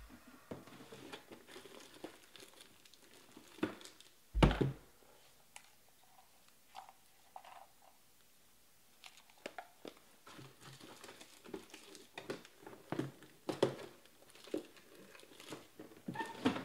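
Packaging being handled, crinkled and torn open, with scattered crackles and rustles and a heavy thump about four and a half seconds in.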